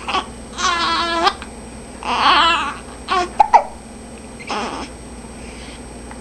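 Hiccups: several short, sharp hiccup sounds, with two longer pitched cries in the first three seconds.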